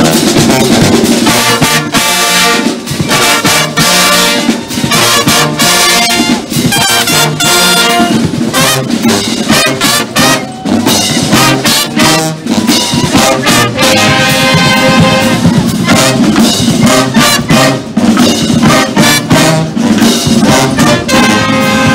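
Police marching band playing a lively tune: trombones, sousaphones and saxophones together over a steady beat of drum strokes.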